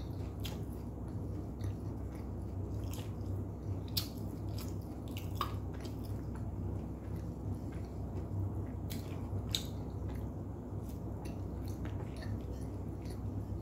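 Close-up chewing of Arabic flatbread (khubz), with small wet mouth clicks scattered throughout.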